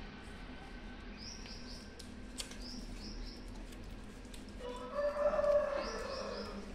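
Shih Tzu puppies in a pen, one giving a whine that lasts about a second, about five seconds in, over short high chirps that come in twos and threes every second or two.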